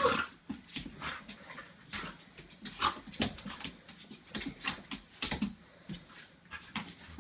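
Two border collies, an adult and an almost 8-week-old puppy, play fighting: scuffling with many short, sharp clicks and knocks and a few brief whines.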